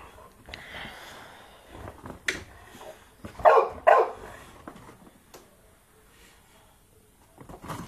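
A boxer dog barking twice in quick succession, about three and a half seconds in.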